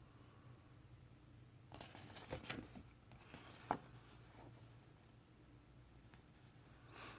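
Quiet handling of paper and card record packaging: soft rustles and scrapes, one sharp tap about halfway through, and a short swish near the end.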